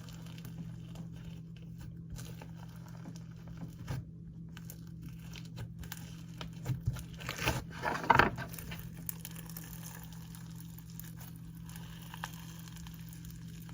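Cold bingsu bead slime being mixed by hand: scattered crinkly crunches and small clicks, with a louder cluster about eight seconds in.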